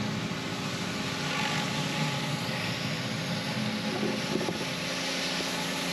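Pressure washer running steadily, its engine hum under a constant hiss of spraying water.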